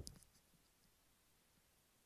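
A single short, soft knock at the very start, then near silence with faint room tone.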